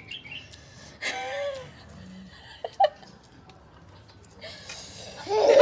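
People laughing, starting near the end and quickly getting loud. Before that it is fairly quiet, apart from a short bit of voice and two quick clicks.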